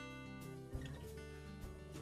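Quiet background music of strummed acoustic guitar chords.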